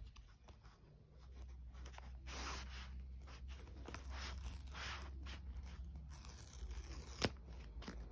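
The paper tear-strip seal of an iPhone box being pulled off, an irregular zip-like ripping mixed with rustling as the box is handled, and one sharp tap near the end.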